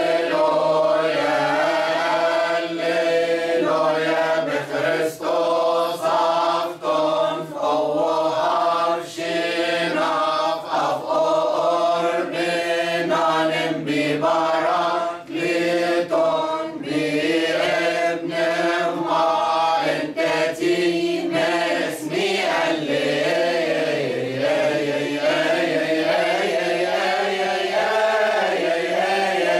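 Mixed choir of men and women chanting a Coptic church hymn together, without instruments, with a few brief pauses for breath.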